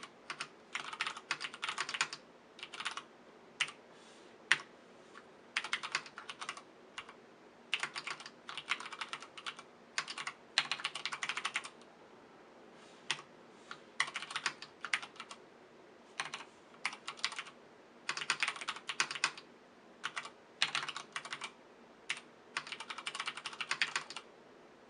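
Typing on an iKBC TD108 mechanical keyboard with Cherry MX Brown switches: quick runs of key clacks lasting a second or so, broken by short pauses, stopping just before the end.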